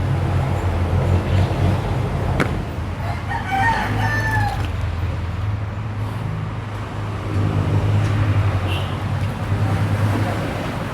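Nissan YD25DDTi four-cylinder turbodiesel idling steadily while its cooling system is bled of trapped air. A rooster crows once about three seconds in, and there is a single sharp tick shortly before.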